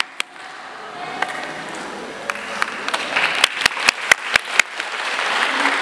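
Audience applause in a hall, starting thin with a few sharp separate claps and building into fuller clapping toward the end.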